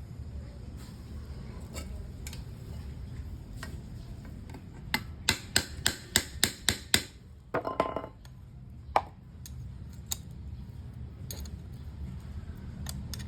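Hand tools working on a metal differential carrier: a quick run of about nine sharp metallic clicks, about four a second, then a short ringing clink of metal on metal and one more click.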